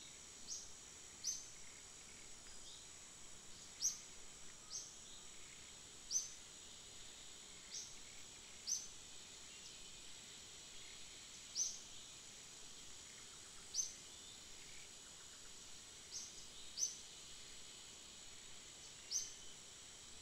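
Forest ambience: a steady high-pitched insect drone, with short sharp high chirps every one to two seconds.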